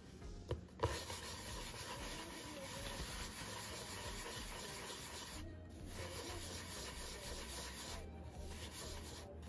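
Bread dough rolled into balls under the palm on a floured wooden board, a steady rubbing and scraping in three stretches with two short pauses. A sharp knock on the board comes just under a second in and is the loudest sound.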